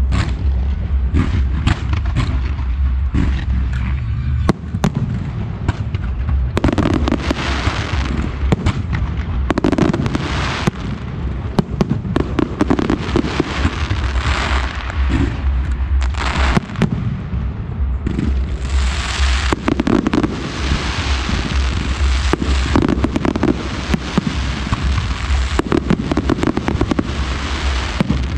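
Fireworks display: shells and multi-shot cakes launching and bursting in quick succession, a dense stream of sharp bangs over a low rumble. Several times it swells into long stretches of crackling.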